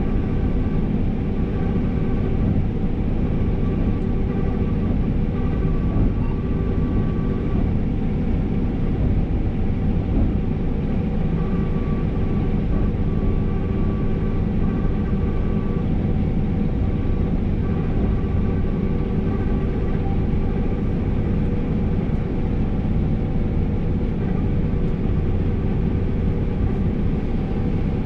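New Holland CR 5.85 combine harvester running under load while harvesting, heard from inside the cab: a steady deep drone of engine and threshing machinery with faint steady whines above it.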